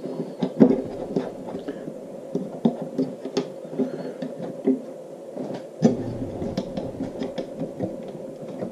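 Aluminium 2020 V-groove extrusions and an aluminium bed plate on small V-groove wheels being slid apart and handled on a wooden workbench: scattered knocks, clicks and light scraping, with the loudest knocks about half a second in and again near six seconds.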